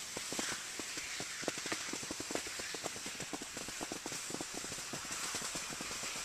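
Skis sliding over granular spring snow: a steady hiss with many quick, irregular scrapes and clicks.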